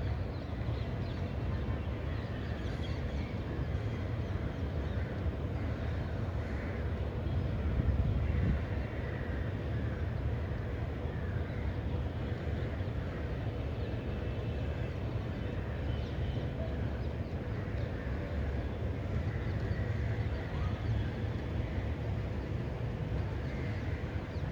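Steady outdoor rain ambience with a low rumble underneath, and birds calling every second or two, briefly louder about eight seconds in.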